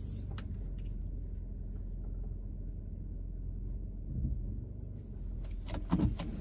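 Steady low rumble of a car heard from inside the cabin as it pulls out of a parking spot, with a few sharp clicks and knocks near the end.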